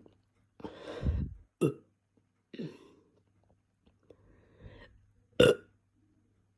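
A person belching from drinking Coke, the soda's gas coming up: a long, deep burp about a second in, then four shorter ones, the loudest near the end.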